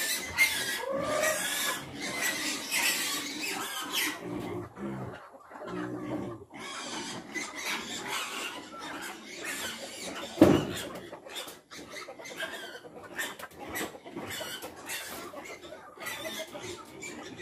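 Piglets squealing and grunting at intervals, mixed with short clicking and rustling noises, with one louder burst about ten seconds in.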